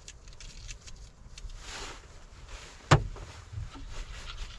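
A few light clicks and a soft rustle, then one sharp, loud knock about three seconds in, followed by a smaller low thud.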